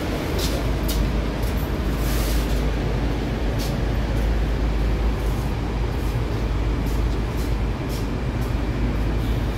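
Steady rumble and hiss inside an 81-765 'Moskva' metro car standing at a station with its doors open, with a few faint clicks in the first few seconds.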